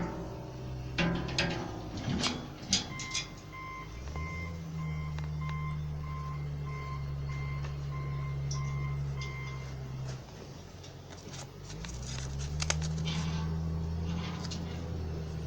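A vehicle's engine running up, easing off and running up again, with a reversing alarm beeping about twice a second for several seconds while it backs up. A few sharp metal clinks come in the first few seconds.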